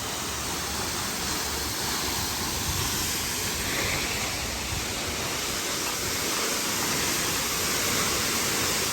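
Waterfall rushing steadily, heard up close as a constant hiss of falling water.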